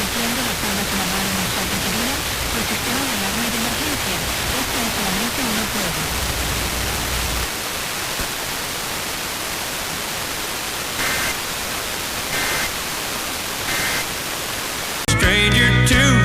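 Steady radio static hiss from a weakly received station, with a faint voice wavering under it for the first few seconds. About 11 seconds in, three short faint tone bursts about a second and a half apart come through the hiss, the pattern of an Emergency Alert System header. Near the end, loud music cuts in.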